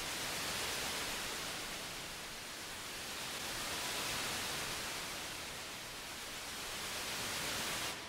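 A steady rushing hiss like static, with no tones or beat. It swells and eases slowly about every three and a half seconds and begins to fade out at the very end.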